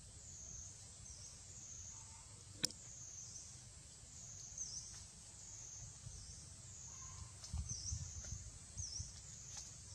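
Outdoor ambience: a high-pitched drone that swells and fades every second or two, with short chirps over it and a low rumble underneath. One sharp click comes about two and a half seconds in.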